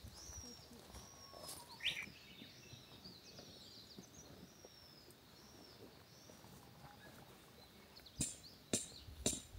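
Faint birds chirping and calling in the open air, with a few sharp clicks near the end.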